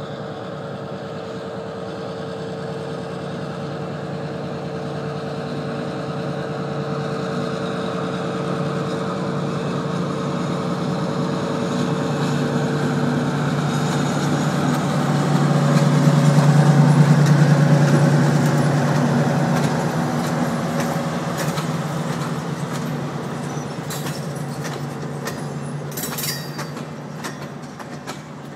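EMD SW1200 switcher locomotive, a 12-cylinder two-stroke diesel, pulling a passenger train past: its steady engine sound grows louder as it approaches, is loudest about halfway through, then fades as the passenger cars roll by. Near the end the cars' wheels click over the rail joints.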